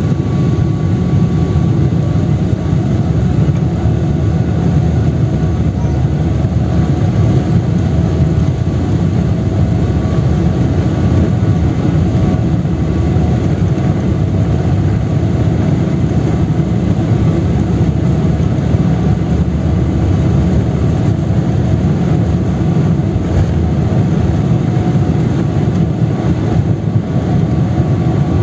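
Jet airliner on its take-off roll, heard from inside the cabin over the wing. The engines at take-off power give a steady, loud, deep rumble with a faint steady whine above it.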